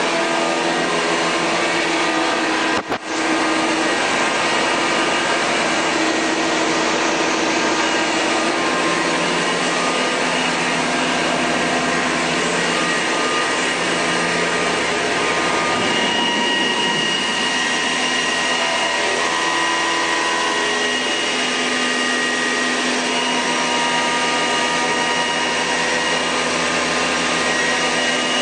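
Steady whir of running machinery, a hiss with several steady whining tones over it. The sound drops out for an instant about three seconds in, and the mix of tones shifts about halfway through.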